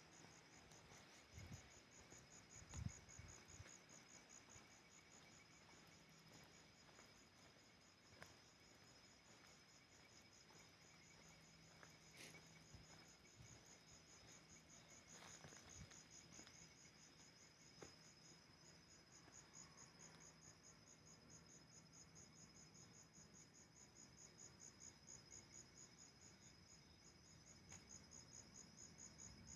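Faint crickets chirping at night, a continuous high-pitched, evenly pulsed trill, with a few faint clicks now and then.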